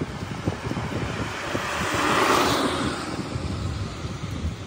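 A car passing on a wet road, its tyres hissing on the wet pavement, growing louder to a peak about two seconds in and then fading. Wind buffets the microphone throughout.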